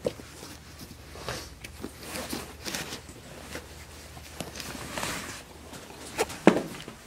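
Rustling of clothes and handling noise from a camera carried close against fabric, with a couple of sharp knocks near the end, the second the loudest.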